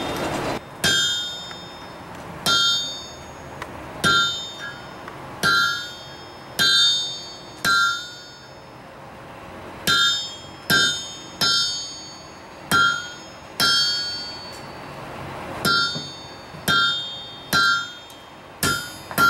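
A blacksmith's hand hammer strikes a red-hot steel bar laid over a hardy cutter in the anvil, about seventeen irregular blows, each with a bright metallic ring. The hot bar is being cut to separate the petals of a forged rose.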